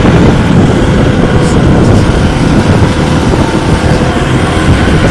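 Small wooden motorboat under way: its engine running steadily under the rush of wind and water, with wind buffeting the microphone.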